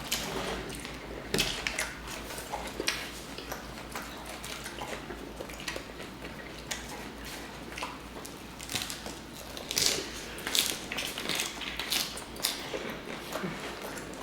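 Close-up eating sounds: people biting and chewing meatball subs, with irregular wet smacks and clicks, busier in the second half.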